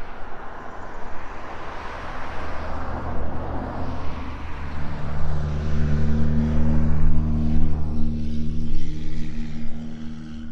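Motor vehicle nearby: a rush of tyre and traffic noise, then from about four seconds in a steady low engine hum that holds nearly to the end.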